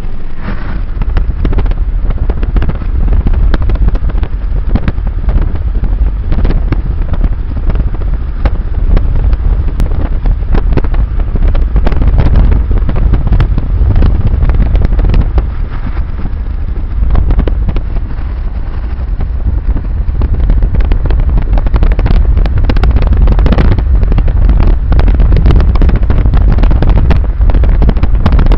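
Wind buffeting the microphone of a camera in a moving car, with a constant low rumble of road and car noise and crackling clicks from the gusts.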